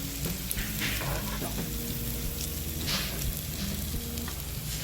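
Pork sizzling on a grill plate heated by an oak-wood fire, a steady crackling hiss with a few small clicks.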